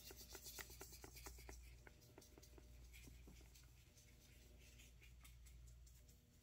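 DTF adhesive powder being sprinkled onto a freshly printed paper transfer: faint, rapid little ticks and rustles of grains landing, thickest in the first couple of seconds and thinning out after.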